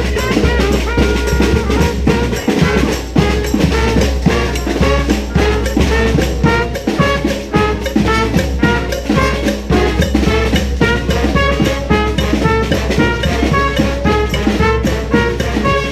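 Street brass band playing, horns carrying the tune over a steady drum beat.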